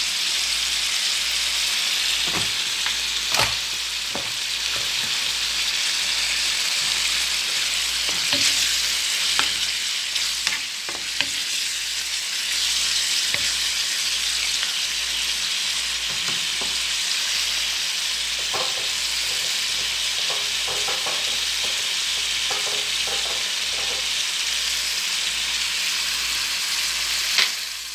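Oysters and vegetables in sauce sizzling steadily in a frying pan, with a wooden spatula stirring and giving a few short knocks against the pan.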